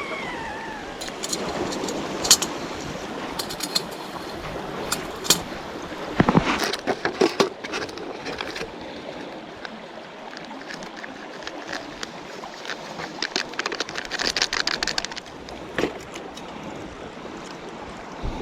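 Kelly Kettle at the boil over a twig fire: a steady bubbling, rushing noise with scattered clicks and knocks of the metal kettle being handled, in clusters about six seconds in and again near two-thirds of the way through.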